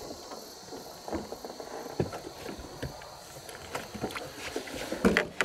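Scattered light knocks and clicks on a small fishing boat as gear is handled, with a louder knock just before the end.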